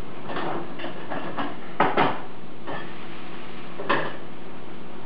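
A cooking utensil knocking against a frying pan on a gas stove while the vegetables are stirred: light taps at first, then two sharp clanks about two seconds in and another near four seconds, over a steady background hum.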